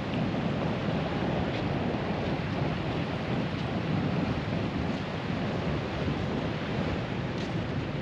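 Wind buffeting the microphone over the wash of surf on the beach, a steady noise heaviest at the low end.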